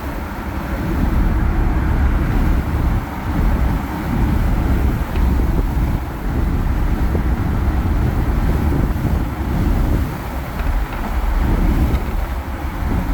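Lifted Jeep driving on the road: a steady rumble of engine, tyres and wind, with heavy gusting wind buffeting on the microphone that rises and falls every few seconds.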